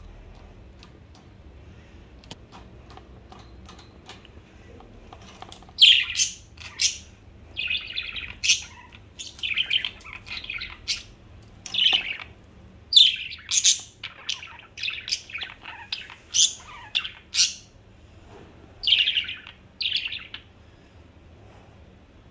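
Pet budgerigars chirping and chattering in short, sharp bursts, starting about six seconds in and stopping shortly before the end.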